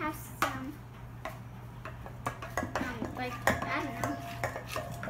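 A spatula scraping and knocking against a stainless steel mixing bowl as butter and eggs are stirred, giving irregular clicks and taps.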